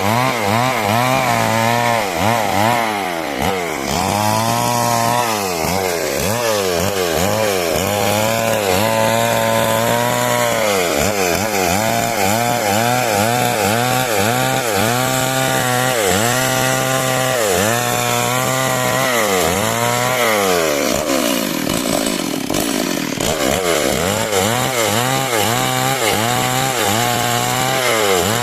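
Two-stroke chainsaw (model 382) cutting wood. The engine pitch repeatedly dips and rises again, about once a second, as the chain loads in the cut and frees up.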